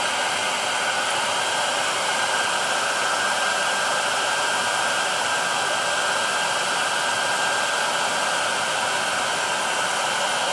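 Handheld hair dryer running steadily: a constant rush of blown air with a faint high whine, drying a dab of wet acrylic paint.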